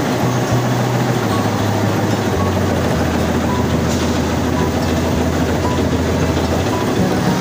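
Tea-processing roller machine running in a tea factory: large rotating rollers make a loud, steady mechanical din with a low hum that drops in pitch twice in the first few seconds and a faint tick about once a second.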